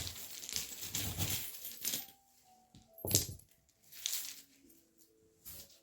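Small metal charms rustling and clinking as a sand-reading tray is stirred, with a sharp clink about three seconds in and lighter ones after. Soft background music with held notes runs underneath.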